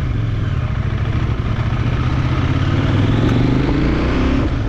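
CFMOTO 800NK Advanced's 799 cc parallel-twin engine idling steadily through its exhaust.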